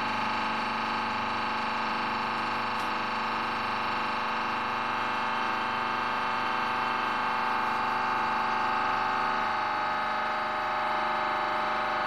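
Test press running under load on a lightweight composite truss, a steady hum made of several held tones with a faint pulsing underneath.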